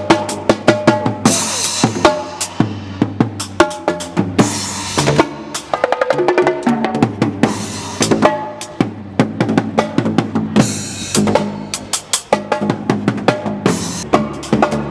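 Percussion ensemble playing: fast, dense drum strikes mixed with some pitched notes, and short bursts of hiss every few seconds.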